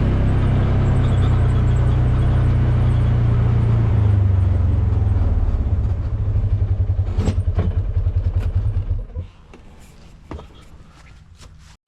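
Ranger utility vehicle's engine running steadily, dropping to a throbbing idle about halfway through and then shut off about nine seconds in. Faint clicks and a knock follow after it stops.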